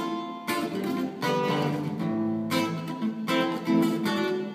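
Acoustic guitar strummed as accompaniment to a song, several strummed chords in a row between sung lines.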